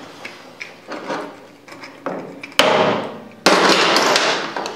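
Faint scratching of a metal pick digging packed chips and grime out of screw slots on a cast-iron South Bend 10K lathe headstock. Partway through come two sudden loud, noisy bursts, each starting sharply and fading over about a second.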